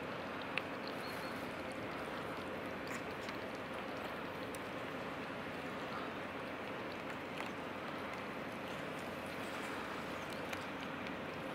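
Several cats eating wet food from a small plastic tray, with a few faint clicks and smacks of chewing over steady background noise.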